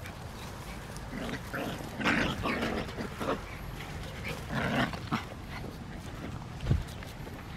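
Puppies barking and yapping in rough play, in a string of short outbursts through the middle. A brief low thump comes near the end.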